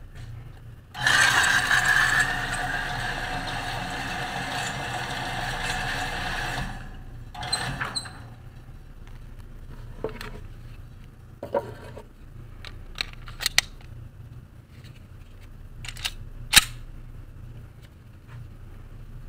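Shooting-range target carrier motor running with a steady whir for about six seconds, then a short second run. Scattered sharp clicks and knocks follow, the loudest one near the end.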